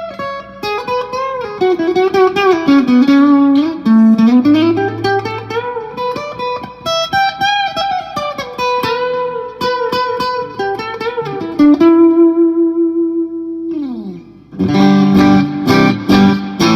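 Electric guitar on its piezo bridge pickup, played clean through a Marshall JCM2000 and a 2x12 cab for an acoustic-like tone. It plays a single-note line with bends, then a held note that slides down about 14 seconds in, then strummed chords near the end.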